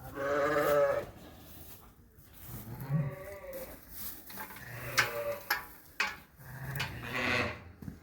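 Dorset sheep bleating: about four calls roughly two seconds apart, the first and loudest right at the start. A few sharp knocks come in the middle.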